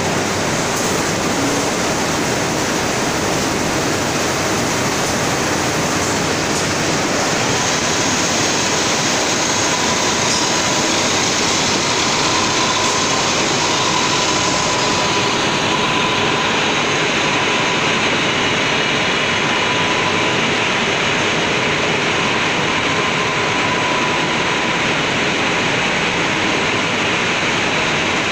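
Steady loud rushing noise of a cotton mill's comber room: the combing machinery running and air drawn through the overhead pneumatic waste-collection ducts. A faint steady whine joins in about eight seconds in.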